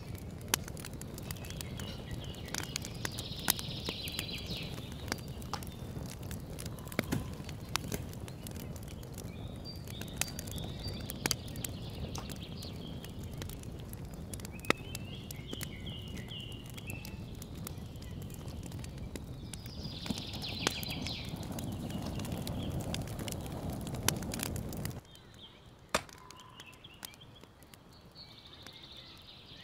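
Wood fire crackling and popping in an open stone hearth, with birds chirping now and then. The fire sound stops suddenly near the end, leaving the birdsong.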